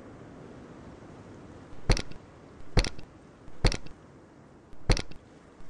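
Sledgehammer blows pounding a coconut on a rock: four sharp, loud strikes about a second apart, beginning about two seconds in.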